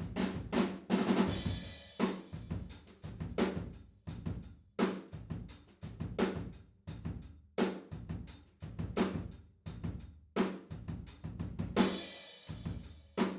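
Acoustic drum kit playing a steady groove, heard only through the far room tube microphones (Neumann M50s), so it comes across roomy and distant. Cymbal crashes come about a second in and again near the end.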